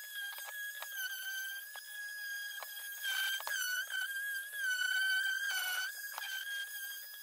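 Ryobi random orbital sander running on pine: a steady high-pitched whine that wavers and sags slightly in pitch as the pad works the wood, with occasional light knocks, louder from about three to six seconds in.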